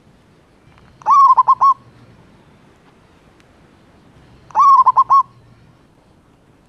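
Zebra dove (perkutut) singing its cooing song twice, about three and a half seconds apart; each phrase is a quick stuttering run of four or five short rising-and-falling coos, lasting under a second.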